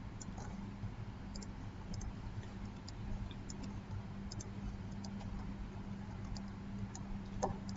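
Computer mouse clicking, scattered irregular clicks a few times a second, over a steady low electrical hum.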